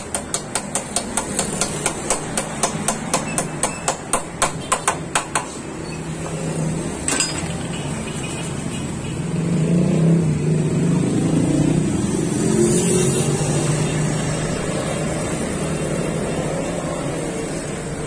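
Steel hammer striking the steering head of a Honda TMX125 Alpha motorcycle, driving a new steering bearing or its race into place: sharp, even metal-on-metal blows, about three a second, stop about five seconds in. One more blow comes about two seconds later, and a low drone rises near the middle.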